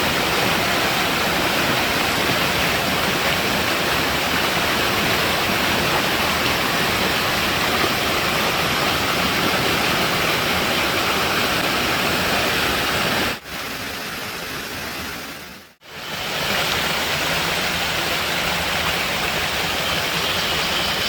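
Waterfall: rushing water as a steady, full roar. About two-thirds of the way through it abruptly drops quieter, fades out briefly, then comes back. A faint steady high whine joins near the end.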